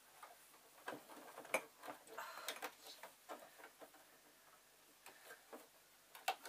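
Irregular small clicks and light rustling of fabric and sewing gear being handled, with a denser rustle about two seconds in.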